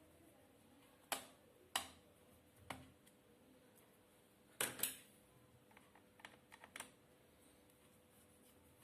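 Sharp clicks and taps of small tools and parts handled on a laptop being taken apart: single clicks about a second apart, a quick double click midway, then a little run of lighter ticks. A faint steady hum underneath.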